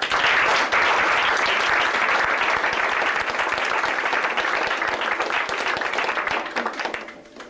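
Audience applauding, breaking out all at once and dying away near the end.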